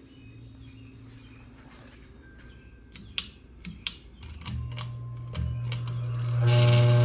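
Hunter Castleton ceiling fan motor running with no blades fitted, giving a steady electrical buzz. A few sharp clicks come about three seconds in. The buzz starts about four and a half seconds in and grows louder near the end, which the owner puts down to the fan running without blades.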